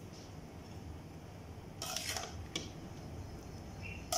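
Slotted metal spoon scraping and clinking against a stainless steel pot while turning cooked rice: a short scrape about halfway through, a light click just after, and another knock at the very end.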